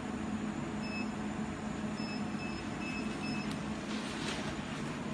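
Fiber laser cleaning machine (LC-200S) running with a steady low hum, while its touchscreen control panel gives several short, high beeps as settings are keyed in.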